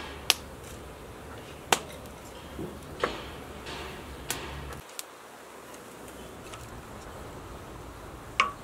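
Dry twigs on a wood fire's embers giving a few sharp cracks and snaps, roughly one a second, as they are laid on. Near the end there is one ceramic clink with a short ring.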